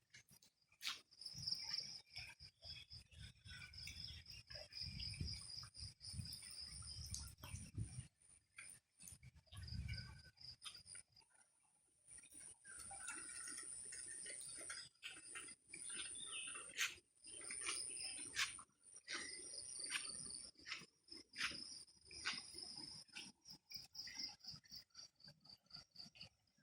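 Insects chirring in a steady high-pitched drone, with a low rumble through about the first eight seconds and briefly again around ten seconds in, and scattered brief clicks.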